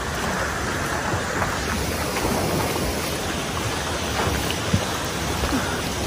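Steady splashing and rushing of river water right at a phone's microphone as it is carried by a swimmer, with a sharp knock about three-quarters of the way through.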